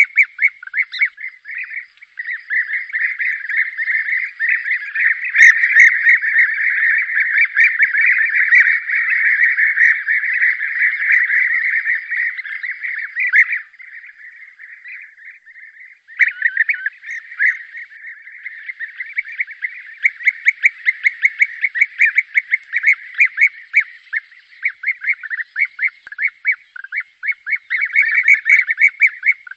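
A flock of European bee-eaters calling: many overlapping rolling, trilled call notes in a dense continuous chorus, thinning briefly about halfway through before picking up again.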